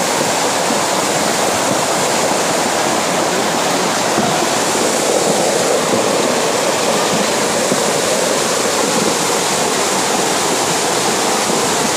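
Muddy flash-flood torrent rushing down a rocky stream channel: a loud, steady rush of churning water.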